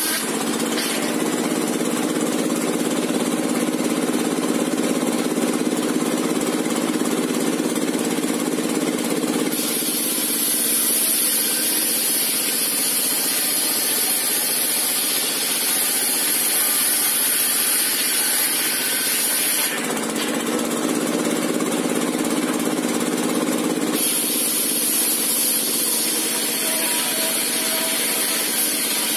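Homemade circular-saw bench driven by a small diesel engine, ripping a long plank of timber lengthwise and running steadily throughout. The sound shifts a few times between a lower hum and a high whine.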